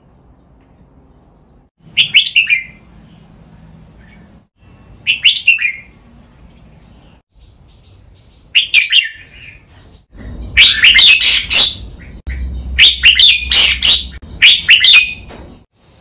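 Red-whiskered bulbuls singing: short song phrases about two, five and nine seconds in, then a run of louder phrases close together through the last five seconds.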